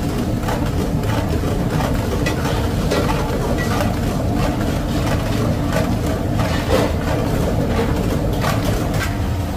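Steady low roar of a commercial kitchen gas range, with scattered pops and sizzles from a yogurt-and-oil mixture bubbling in a large kadai as it cooks down.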